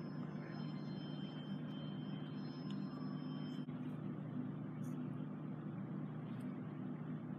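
Steady low mechanical hum with a faint thin high tone over it for the first few seconds.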